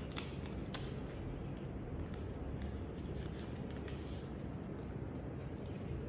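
A small sheet of origami paper being folded and creased by hand on a glass tabletop: soft paper crinkles and light ticks every second or so, over a steady low room hum.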